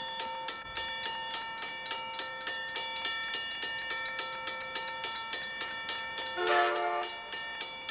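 Railroad grade-crossing bell ringing steadily, about two strikes a second, as a train approaches. About six and a half seconds in, the approaching locomotive's air horn sounds one short blast, a chord of several notes at once, the loudest thing here.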